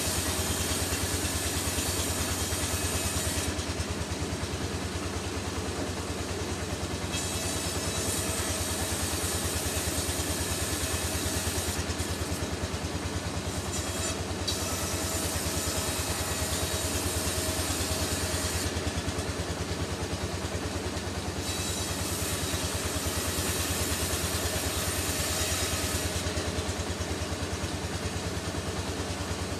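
Sawmill machinery running steadily: a constant, fast-pulsing engine-like hum, with a high hiss that cuts in and out abruptly several times.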